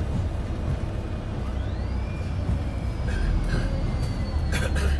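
Wright StreetDeck double-decker bus under way, heard from the upper deck: a steady low engine and road rumble with a whine that rises in pitch about a second and a half in, then slowly falls. A few short rattles near the end.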